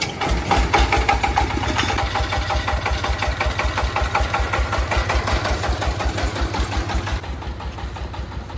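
A small engine running with a rapid, even low beat, starting up loud and dropping off in level about seven seconds in.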